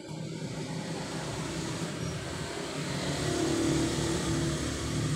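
A motor vehicle's engine passing, growing louder to a peak about three to four seconds in, then easing off.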